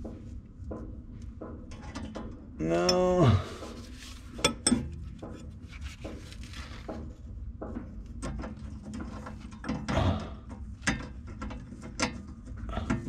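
Crescent wrench clicking and tapping against the bolt of a damper clamp on a steel fireplace damper as it is tightened, with a few sharp metal clicks spread through.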